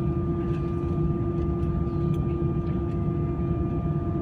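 Airbus A320's jet engines heard inside the passenger cabin: a steady drone of low rumble and rushing air with a constant hum tone running through it.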